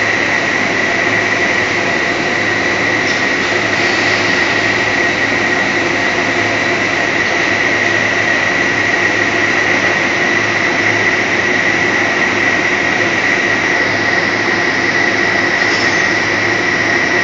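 HDPE/PP tape line machinery running steadily: the film and slit tapes pass over the rollers with a constant high whine and a low hum under a loud, even mechanical noise.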